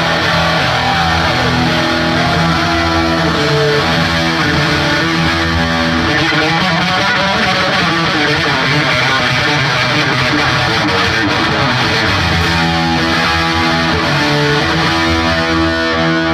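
Heavy metal band playing live: a loud, distorted electric guitar riff over bass and drums, with long held chords and no singing.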